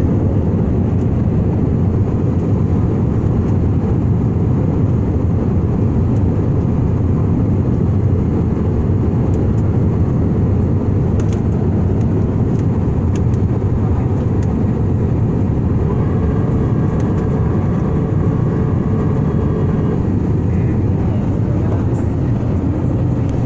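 Steady cabin noise of a jet airliner in flight: an even, deep rush of engines and airflow heard from a window seat. A faint higher tone joins in for a few seconds past the middle.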